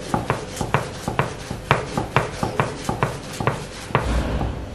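Rolling pin being pushed back and forth over a thin sheet of dough on a wooden board, with a short knock at each stroke, about two a second, and the rub of the pin between them. The strokes stop near the end.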